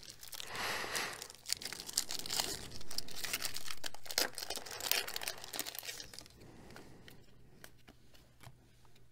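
Foil-lined Bowman baseball card pack wrapper being torn open, crinkling and crackling. After about six seconds it gives way to softer rustling and light clicks as the cards are handled.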